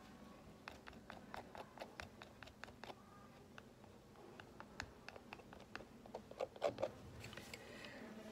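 Palette knife scraping and tapping cold wax and oil paint onto a small canvas: a run of faint clicks and scratches, with a louder cluster of clicks about six and a half seconds in.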